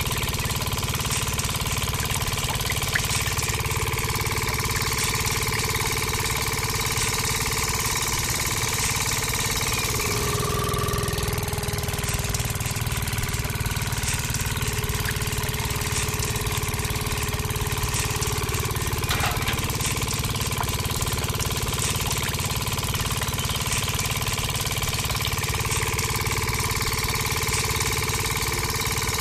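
Small motor running steadily, turning a miniature roller press through a belt as sticks are fed between the rollers.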